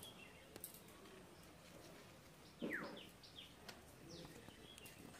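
Bird calling: one clear downward-sweeping chirp about halfway through, then a few shorter falling chirps, with faint scattered clicks.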